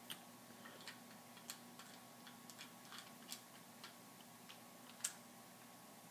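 Faint, irregular clicks and taps of plastic LEGO pieces being handled and pressed together, the sharpest about five seconds in.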